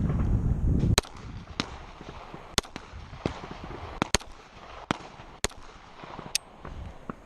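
Handgun shots, about a dozen sharp cracks fired one at a time at irregular intervals of roughly half a second to a second. A low rumble of wind on the microphone fills the first second, before the first shot.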